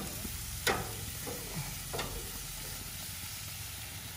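Sauce-coated chicken sizzling on a hot gas-grill grate in a steady hiss, with a few sharp clinks of metal tongs against the saucepan and grate, the loudest about a second in.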